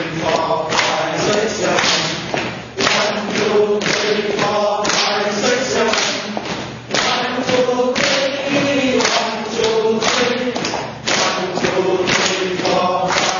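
A small group clapping hands and stepping in rhythm during a four-beat clapping exercise, with their voices chanting together over the claps.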